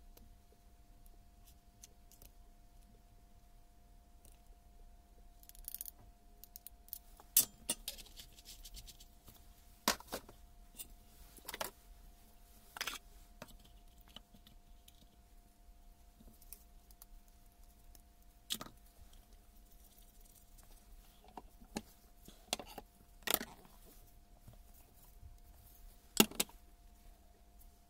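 Scattered light clicks, clinks and knocks of metal and plastic parts as a Hilti TE 700 breaker's gearbox housing is handled and its orange filler cap fitted, with a handful of sharper knocks. A faint steady hum runs beneath.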